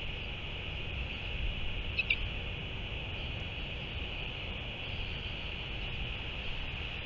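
Outdoor ambience with wind rumbling on the microphone under a steady high hiss, and one short high chirp about two seconds in.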